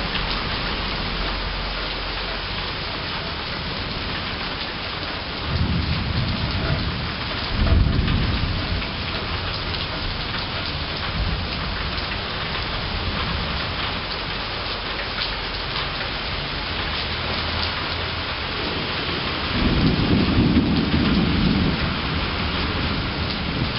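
Steady rain falling through a summer thunderstorm, with thunder rumbling low twice: once about five seconds in for a few seconds, and again about twenty seconds in.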